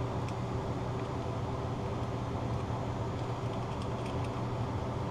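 Steady low machine hum, with a few faint small clicks of a hand tool tightening a screw inside a Willys L134 distributor.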